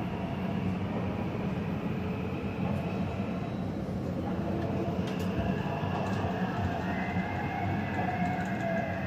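Taipei Metro train running on the Zhonghe–Xinlu line: a steady rumble of wheels and running gear on the track, with faint whining tones that rise slightly in the second half.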